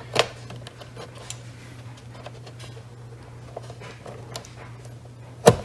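Small clicks and taps of a screwdriver and stiff wire being worked into a spring-clamp terminal block inside a solar inverter's wiring compartment. A sharper click comes just after the start and a louder one near the end. A steady low hum runs underneath.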